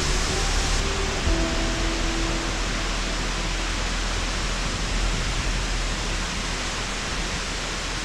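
A mountain waterfall rushing: a steady, even noise of falling water plunging into a rock pool.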